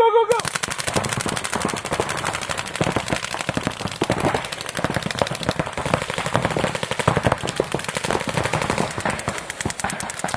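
Many paintball markers firing rapid streams of shots at once, a dense continuous barrage of overlapping pops that starts suddenly right at the start.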